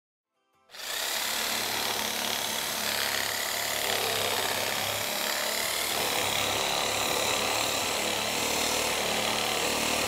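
Reciprocating saw cutting down through a wooden deck joist, starting just under a second in and running steadily.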